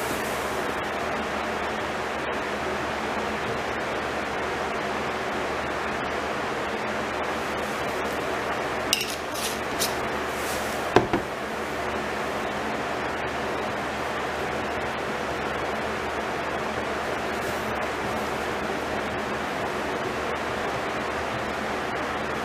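Steady background hiss throughout, with a few light clicks and knocks about nine to eleven seconds in: a wooden stir stick tapping and scraping in a plastic paint mixing cup as paint is mixed.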